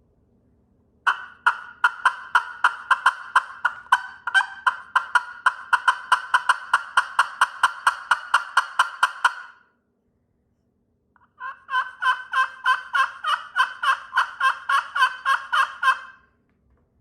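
Vintage slate turkey call played with a striker, giving two long runs of quick, evenly spaced turkey-like notes, about five a second, with a short pause between them.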